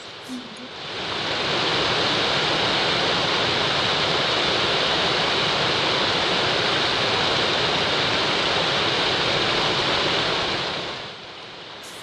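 Small waterfalls pouring over mossy rock ledges into a pool: a steady rush of falling water. It fades in over about the first second and fades out shortly before the end.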